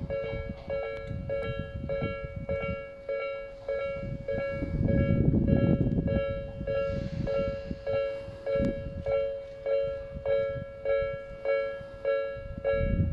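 Japanese level-crossing electronic warning bell ringing steadily, a repeated two-note ding at about two and a half strikes a second, sounding as a train approaches. A low rumble of the train swells under it about five seconds in.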